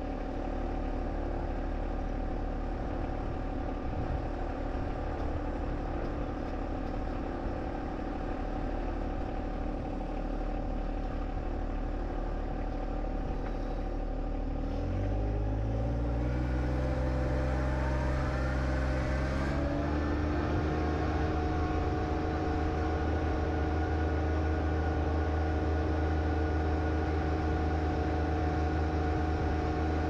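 John Deere 1025R compact tractor's three-cylinder diesel engine running steadily at low speed. About halfway through it is throttled up over four or five seconds, then holds at a higher speed.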